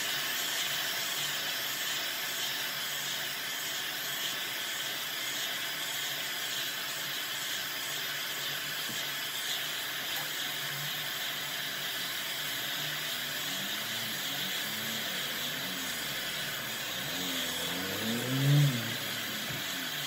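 Tacklife heat gun running steadily, its fan blowing hot air onto a graphics card in an even hiss. Near the end a low wavering sound rises and falls, briefly louder than the hiss.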